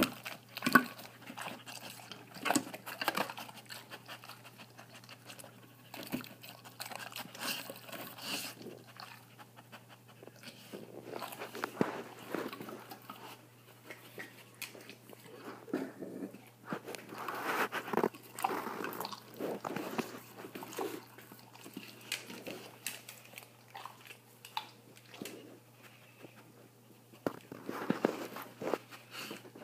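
A dog wolfing down its food from a metal bowl: irregular runs of crunching and chewing, in several louder spells with quieter gaps between.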